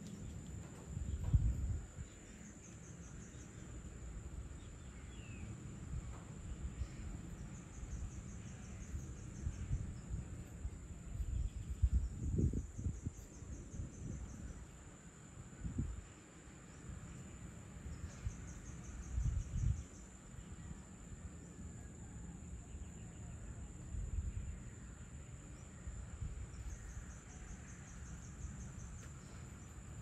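Evening insect chorus: a steady high trilling with pulsing stretches every several seconds, over an irregular low rumble of wind on the microphone that gusts up a few times.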